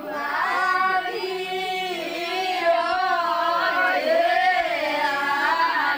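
Women's voices singing a Rabari folk song in long, drawn-out notes that slide gently up and down.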